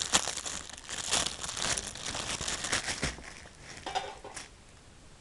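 Packaging crinkling and tearing as it is opened by hand: dense crinkling for about three seconds, then a few last crackles.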